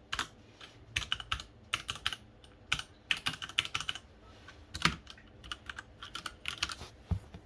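Leopold FC900R mechanical keyboard with Cherry MX Red linear switches being typed on: irregular runs of quick keystrokes, with one heavier stroke about five seconds in and a low thump near the end.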